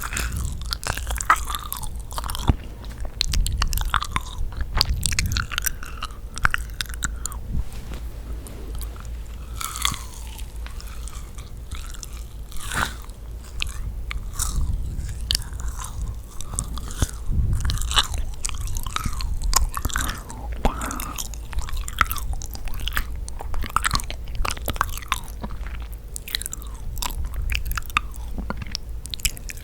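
Close-miked eating of yakgwa, Korean deep-fried honey cookies: repeated biting and sticky, chewy chewing with many small wet clicks and smacks.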